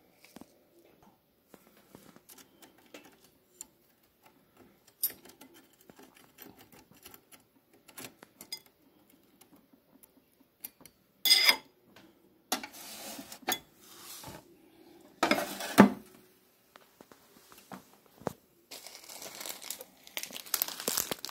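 Scattered small clicks and a few louder clatters and scrapes of a metal fork against a ceramic bowl of cooked noodles. Rustling of fabric near the end.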